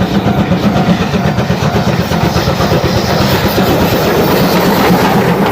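Moving train on rails: a loud, steady rumble with fast clatter.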